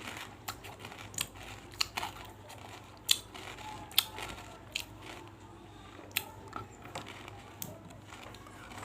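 Close-miked crunching and chewing of big pieces of banslochan (tabashir). Irregular sharp crunches crack between the teeth, the loudest about three and four seconds in.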